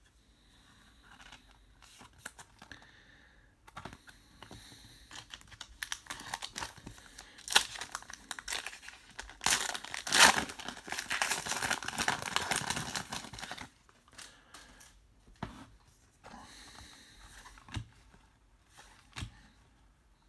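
A trading card pack wrapper being torn open and crinkled, the loud crackling part lasting several seconds in the middle. Quieter rustles and light clicks of cards and a plastic card sleeve being handled come before and after it.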